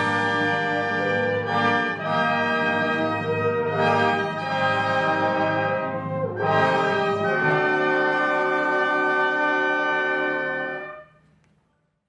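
Wind orchestra playing full sustained chords led by the brass (trombones, trumpets, horns), the harmony shifting every couple of seconds. It ends on a long held chord that dies away about eleven seconds in.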